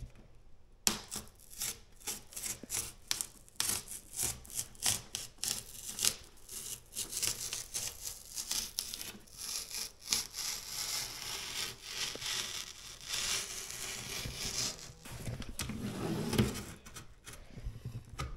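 Utility knife slicing through corrugated cardboard in many short, rapid strokes, starting about a second in.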